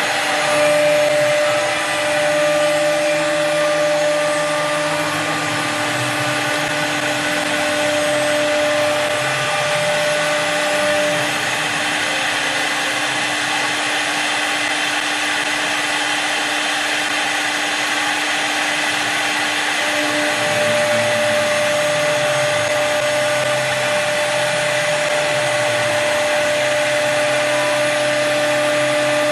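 CNC wood lathe's motor-driven cutting spindle grooving a spiral twist into a long turned wooden column. It makes a steady machine whine over the noise of the cut. One tone drops out for several seconds midway and then returns.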